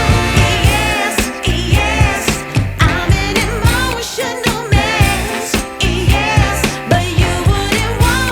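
Background music: a pop song with a sung vocal melody over a steady beat.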